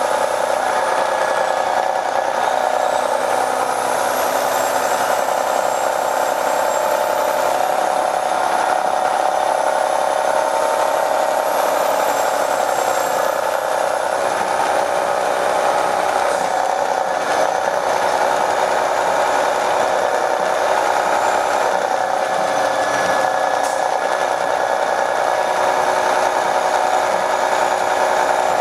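Detroit Diesel Series 60 diesel engine of an MCI D4500 coach bus running steadily, heard from inside the bus as a continuous drone with a faint high whine that rises and falls.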